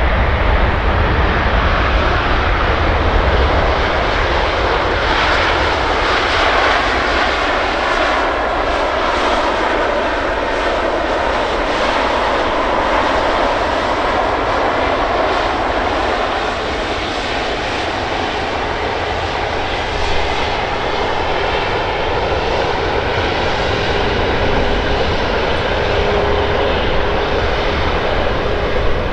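Airbus A350-941 jetliner's Rolls-Royce Trent XWB turbofans running loudly at close range as it comes in to land, with tones that slide down in pitch as it passes.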